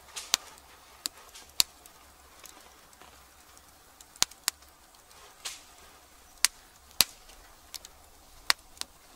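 Newly lit wood fire crackling inside a clay pizza oven: about a dozen sharp, irregular pops and snaps from the burning logs over a faint background.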